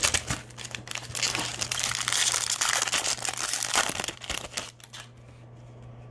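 Trading-card pack wrapper being torn open and crinkled by hand, a dense crackling that stops about five seconds in, over a steady low electrical hum.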